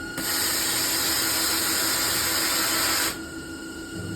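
A loud, steady hiss from a VMC milling machine during a program run cuts in sharply just after the start and cuts off about three seconds later, over the machine's constant hum.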